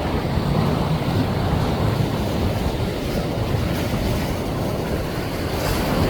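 Ocean surf washing against the shore with wind buffeting the microphone: a steady rushing noise, heaviest in the low end.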